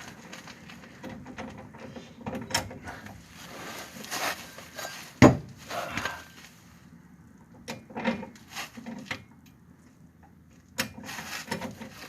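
Tools and spray cans being handled and set down on a hard surface: scattered clinks and knocks, with one sharp knock about five seconds in.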